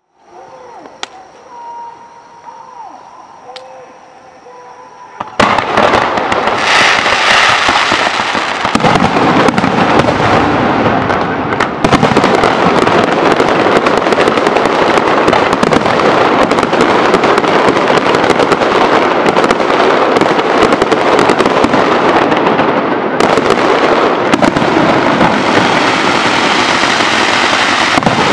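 Fireworks display. After a few quieter seconds, a dense barrage starts suddenly about five seconds in and carries on as a continuous crackle of many rapid bursts and bangs.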